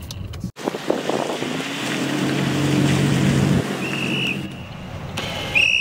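Wind and road noise from a moving car, swelling in the middle, with two short high chirps near the end.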